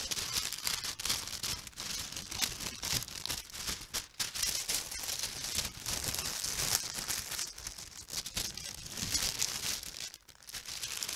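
Black tissue paper being unfolded and handled by hand while unwrapping a gift, a dense run of crinkling and crackling with a short lull near the end.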